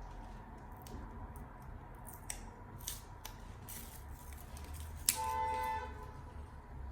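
Small clicks and rustles of a wireless charger unit being handled during installation, then a sharp tap about five seconds in followed by a brief ringing tone.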